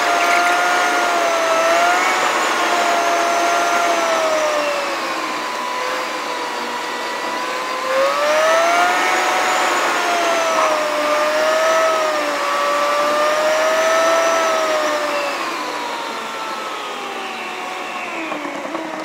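Car driving, heard from inside the cabin: steady road noise with a whine that slowly rises and falls in pitch as the speed changes.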